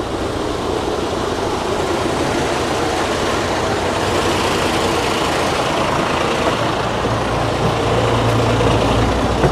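Bus stand traffic noise with bus engines running. About seven seconds in, a close engine's low idling hum grows louder.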